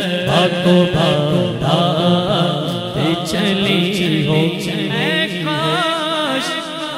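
A man singing a naat, an Urdu devotional poem in praise of the Prophet, unaccompanied into a microphone. He draws out long melismatic notes with wavering, ornamented pitch, over a low steady drone that fades away about five seconds in.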